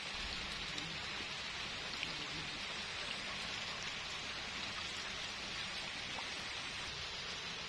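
Steady rain falling on a pond's surface: an even hiss with the odd close drop ticking now and then.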